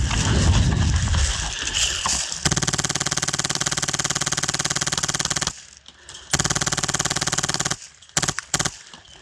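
Polarstar HPA-powered airsoft Stoner 96 LMG firing full-auto: one long burst of about three seconds, a second burst of about a second and a half, then three short bursts near the end, each a rapid even rattle of shots. Before the first burst there are about two seconds of low rumbling noise.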